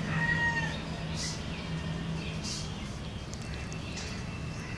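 A rooster crowing, its call ending under a second in, followed by outdoor background noise with faint short sounds.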